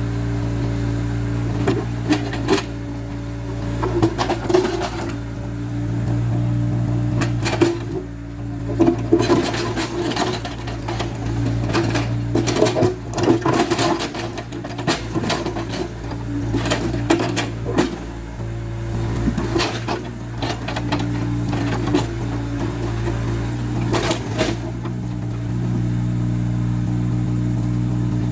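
Caterpillar 307C excavator's diesel engine running steadily under work, with repeated knocks and clanks of the bucket against stones, thickest in the middle.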